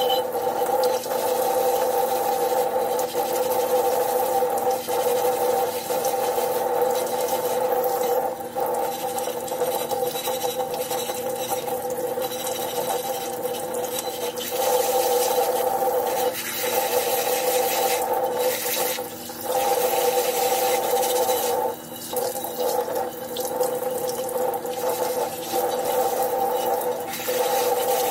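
Cold tap water running from a kitchen faucet onto an unglazed clay pot as it is rinsed and scrubbed by hand: a steady rush of water on clay, with several brief dips in the sound.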